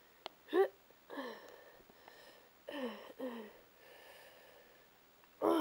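A child's voice making short groans and gasps that fall in pitch, about five of them with pauses between, play-acting a hurt toy's pain.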